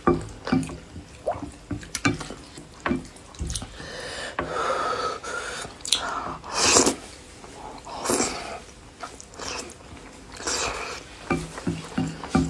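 A person eating noodle soup close to the microphone: wet chewing and lip-smacking clicks, with several longer slurps of noodles and broth in the middle.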